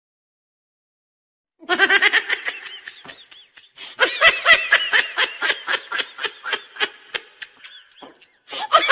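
Laughter sound effect: a high-pitched voice laughing in quick repeated ha-ha pulses. It starts about a second and a half in, dips briefly, runs on to near the end, and a second burst of laughter begins just before the close.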